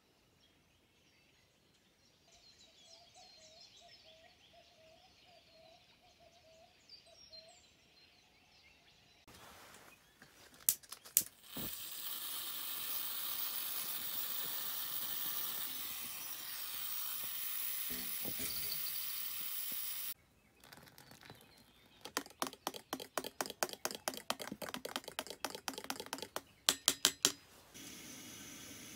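Faint bird calls, then a pressurised liquid-fuel camp stove hissing loudly and steadily as it burns with a tall flaring flame, cut off abruptly. A quick run of clicks follows, then water pouring from a plastic jerry can into a bottle near the end.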